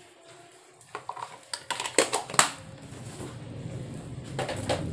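Wire whisk stirring thick bakwan (vegetable fritter) batter in a stainless steel mixing bowl, scraping and clanking against the metal, loudest about two seconds in and again near the end. A low steady hum builds up underneath from about halfway.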